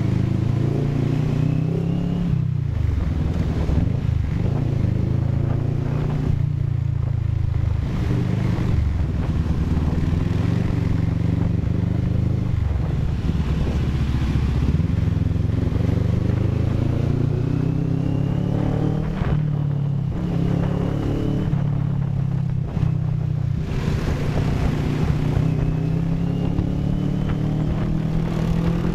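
CFMoto 400NK motorcycle's parallel-twin engine running under way, its pitch climbing and dropping several times as the rider accelerates and eases off, over steady wind rush on the microphone.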